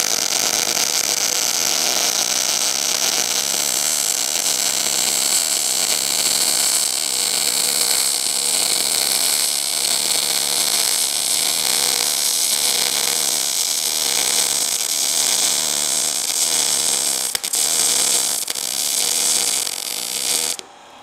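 YesWelder DP200 MIG welder running a continuous weld bead on 1/8-inch steel, powered from a 110-volt outlet in standard (non-pulse) mode: a steady arc hiss that cuts off shortly before the end.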